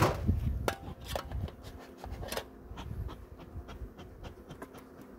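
Scattered clicks and knocks of beehive equipment being handled, the loudest right at the start and a few more in the first two and a half seconds. A faint steady hum of honeybees sits under the later part.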